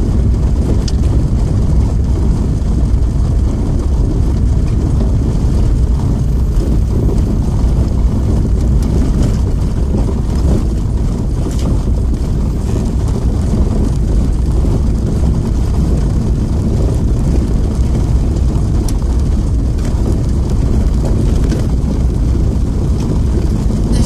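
A vehicle driving on a gravel road, heard from inside the cabin: a steady low rumble of engine and tyres on gravel.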